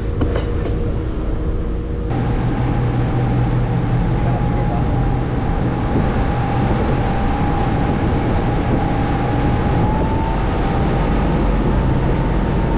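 Boat engine running steadily under a rushing haze of wind and water. Its note changes abruptly about two seconds in, bringing a stronger low hum and a thin whine that creeps slightly higher.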